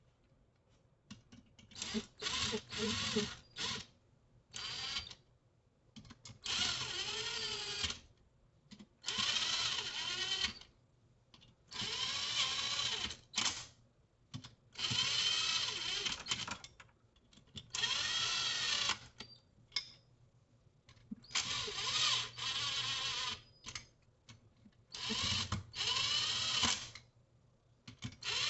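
Cordless drill/driver running engine bolts down in about nine short bursts of one to two seconds each, its motor pitch rising and falling with each trigger pull. The bolts are only lightly driven down, to be torqued to spec by hand afterwards.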